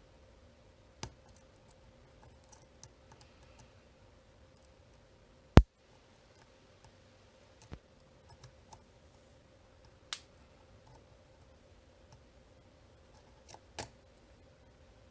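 Scattered sharp metallic clicks of a dimple pick and tension tool working the pins of a VSR 9-pin dimple cam lock, with one much louder snap about five and a half seconds in.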